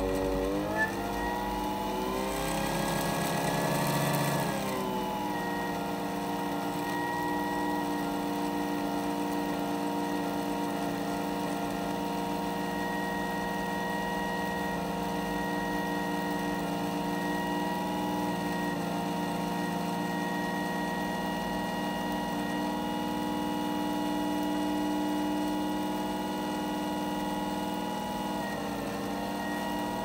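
Electric motor spinning a disc of neodymium magnets at high speed beneath a copper strip, running with a steady whine. About two seconds in its pitch climbs, with a hiss added, then drops back after a couple of seconds and holds steady, dipping briefly near the end.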